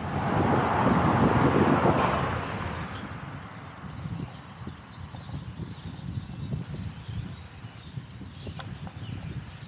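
A motor vehicle passes close by, loudest in the first two seconds and fading by about three seconds in. Small birds then chirp over a low wind rumble on the microphone.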